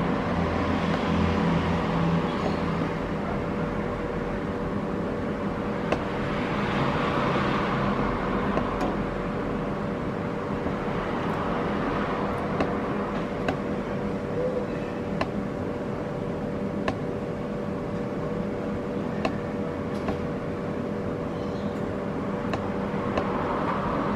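Road traffic outdoors: a steady wash of noise with a hum, swelling and fading three times as vehicles pass, and faint regular clicks in the second half.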